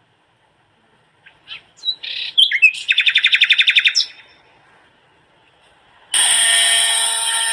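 Birds chirp, then a fast trill runs for about a second. About six seconds in, a small motor in a toy diesel-engine pumping set switches on suddenly and runs with a steady, high-pitched whine.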